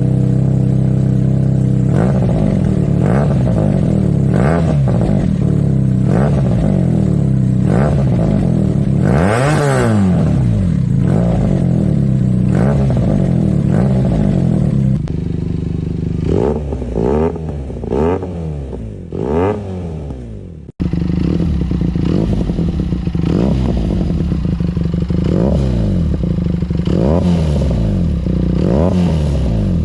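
Benelli 300 parallel-twin motorcycle engine with a Leovince full-system exhaust, revved again and again in blips from idle, the pitch rising and falling with each blip. The sound is three separate recordings cut together, with a thinner, quieter stretch in the middle, from about 15 s to 21 s.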